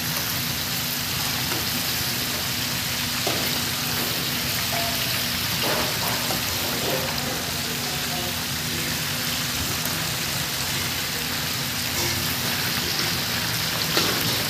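Chicken deep-frying in a commercial fryer, the oil sizzling steadily, over a steady low hum.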